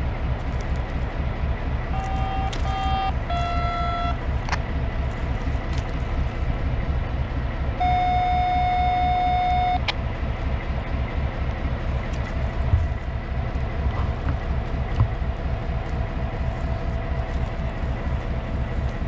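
Diesel engine of a LORAM maintenance-of-way power unit running with a steady low throb. Its horn gives two short toots about two seconds in, another short toot just after, then a long blast of about two seconds around the eight-second mark. A couple of light knocks follow later on.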